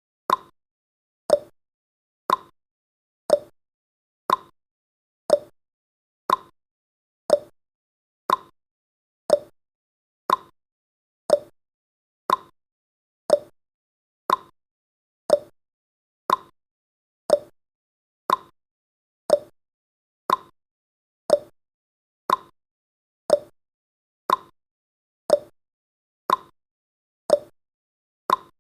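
Countdown timer's ticking sound effect: one short tick every second, alternating between a lower and a higher pitch like a clock's tick-tock.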